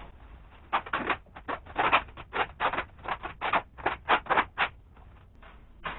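Black plastic bag suit rustling and crinkling in a quick run of short rasping strokes as it is handled and adjusted at the sleeve.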